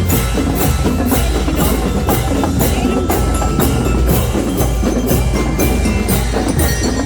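Fiesta percussion band drumming a steady beat of about two strokes a second, with a constant low rumble underneath.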